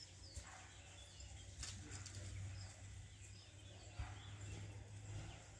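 Quiet outdoor ambience: faint, scattered bird chirps over a low, steady rumble, with a few soft clicks.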